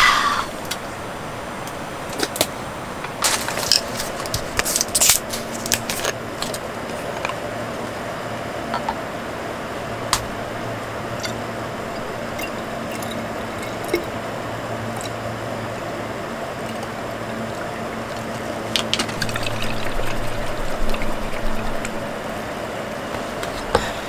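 Liquid poured from a plastic bottle into a glass soju bottle, with sharp clicks and clinks of bottles and caps being handled, mostly in the first few seconds and again near the end. A steady low hum runs underneath.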